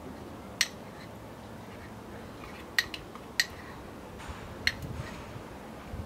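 A metal spoon clinking against a ceramic cup and a stainless steel saucepan while honey is scraped out into the pot: four sharp, short clinks a second or more apart, with a few lighter taps near the end, over a faint low hum.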